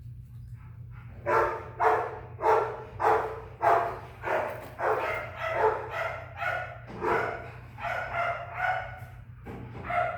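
An animal calling over and over, about two short calls a second, starting about a second in, over a steady low hum.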